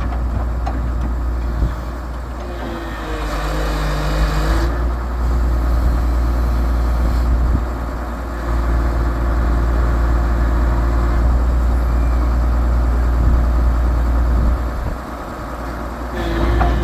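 Cummins diesel engine of a 1989 Komatsu PC220LC excavator running, a steady low drone that swells and dips several times. A whine bends up and down in pitch about three seconds in and again near the end.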